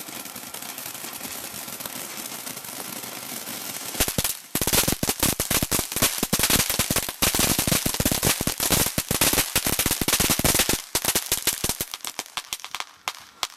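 Ground fountain fireworks spraying sparks with a steady hiss for about four seconds. Then a sudden dense run of rapid cracks and pops lasts about seven seconds and thins out to scattered pops near the end.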